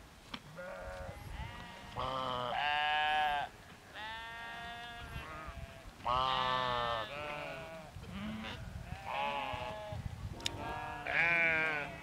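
A flock of sheep bleating, one call after another and sometimes overlapping, each call lasting about a second. Some calls are loud and close, others fainter.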